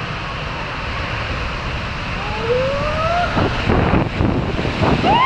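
Steady rushing water noise of a swimming pool, with a high voice squealing upward about halfway through, a few splashes, then a long, high whoop near the end.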